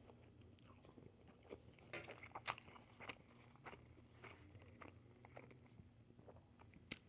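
Quiet close-up chewing and crunching of food in the mouth, with a few short crunchy clicks about two to three seconds in and one sharp one near the end.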